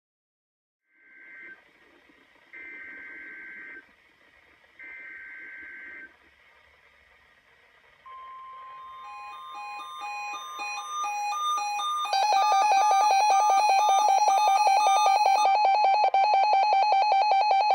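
Emergency Alert System alert audio: three short bursts of SAME header data tones, then a steady electronic tone about eight seconds in, followed by layered beeping alert tones. About twelve seconds in, a loud, rapidly pulsing alert tone takes over.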